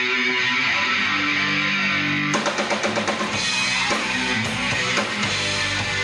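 Live rock band playing amplified. Electric guitar chords ring out alone at first, then about two seconds in the drum kit and the rest of the band crash in together and carry on at a driving beat.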